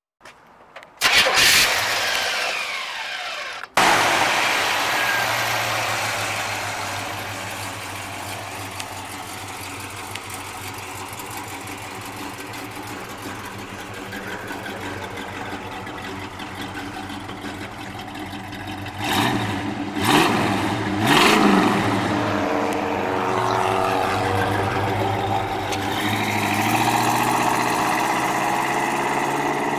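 A 1956 Chevrolet Nomad's 350 cubic-inch small-block V8 starts about a second in, then idles steadily. A few sharp thumps come about two-thirds of the way through. Near the end the engine note rises as the car pulls away.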